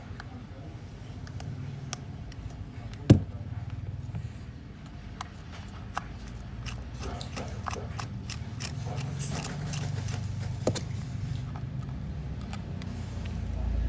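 Small metal repair tools clicking and tapping against an iPhone X as it is taken apart for a battery replacement, with one sharp louder click about three seconds in, over a steady low hum.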